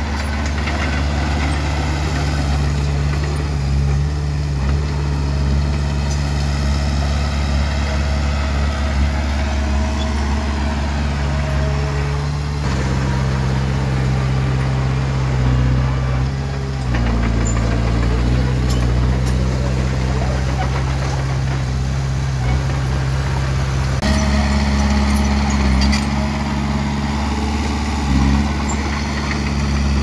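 Komatsu D20P bulldozer's diesel engine running steadily under load. Its pitch shifts a few times: about 12 seconds in, again around halfway, and near 24 seconds.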